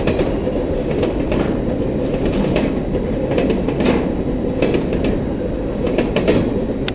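Freight train rolling along the track: a steady low rumble with irregular sharp clicks and clanks from the wheels and cars, several a second.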